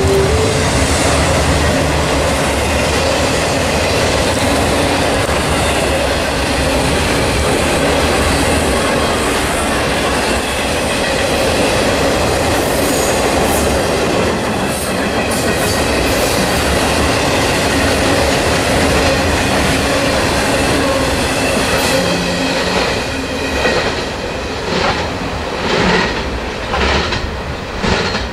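Long intermodal freight train of truck trailers on flatcars rolling past, a steady rumble of wheels on rail. About 23 seconds in, a run of regular clacks comes in as the wheels pass over rail joints.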